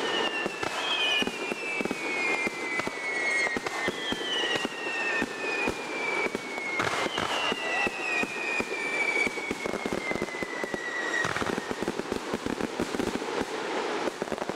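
Aerial fireworks bursting overhead at close range: a dense run of crackling pops and bangs, with several long whistles that slide down in pitch.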